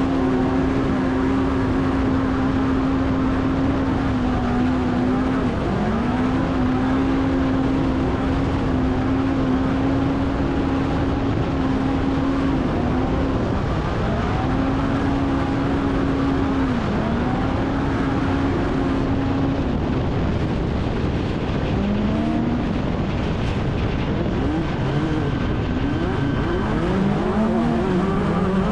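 Off-road race vehicle's engine running hard at high, nearly steady revs, dipping briefly every few seconds as the throttle lifts and comes back on, over a constant rush of noise.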